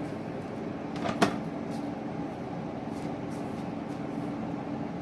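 Steady low room hum, with one sharp tap about a second in and a few faint light ticks.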